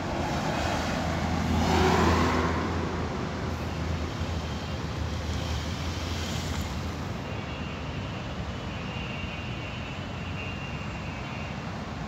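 Road traffic on a wide street: a car passes close by, loudest about two seconds in and fading away, over a low engine hum and steady traffic noise.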